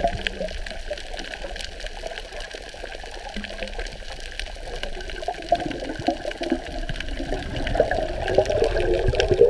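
Sea water sloshing and gurgling against a camera held at the surface as it dips under and comes back up, growing louder near the end.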